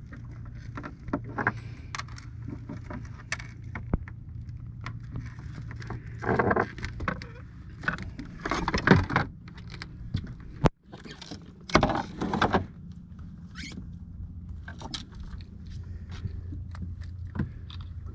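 Small boat's engine idling with a steady low hum, under scattered clinks and knocks of gear being handled on deck, with a few louder bursts of noise about six, nine and twelve seconds in.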